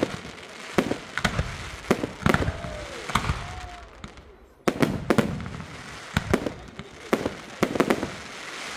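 Aerial fireworks going off in a string of sharp bangs, several coming close together, with crackling between them. There is a brief lull about four seconds in, then a new volley of bangs.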